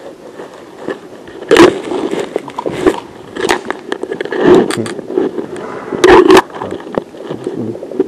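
Irregular loud knocks, rattles and scrapes, the loudest about a second and a half in and again around six seconds in.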